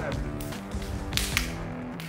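Background music with held notes, and two sharp hits a little past halfway.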